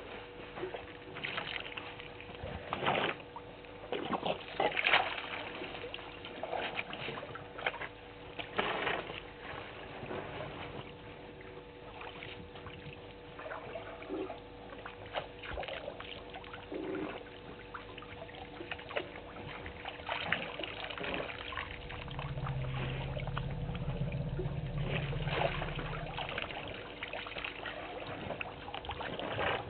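African elephants drinking at a waterhole: water trickling and splashing in irregular sharp bursts as trunks draw it up and spill it. A low rumble lasts about four seconds around three-quarters of the way through, over a faint steady hum.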